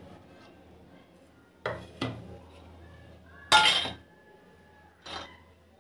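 Steel pan clanking against the metal grate of a gas stove as it is handled and lifted off the burner: several separate knocks, the loudest about three and a half seconds in with a brief metallic ring.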